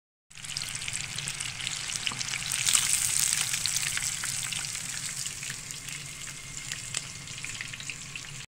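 Panko-breaded mullet pieces deep-frying in hot oil: a steady sizzle thick with small crackles and pops. It grows louder about three seconds in, eases off after, and cuts off suddenly near the end.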